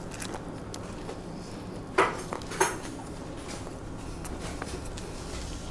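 Two sharp clinks of tableware, about half a second apart, a couple of seconds in, over a steady low room hum.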